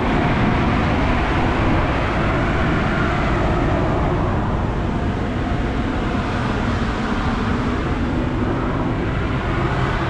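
Heavy diesel engine running steadily: a continuous low rumble under an even, noisy rush.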